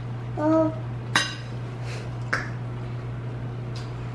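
Tableware at a meal: two sharp clinks of cutlery or dishes, one a little after a second in and one about two seconds later, over a steady low hum. A child's short sung note comes near the start.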